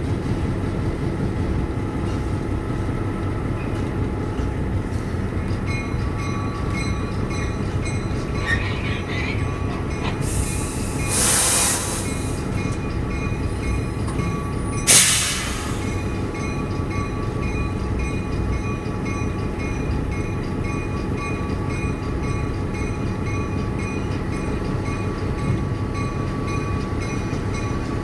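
Diesel locomotive running steadily as the train rolls slowly, heard from inside the cab, with a faint steady whine joining in. Partway through come two short bursts of hiss: one lasting about a second and a half, then a sharper, briefer one a few seconds later.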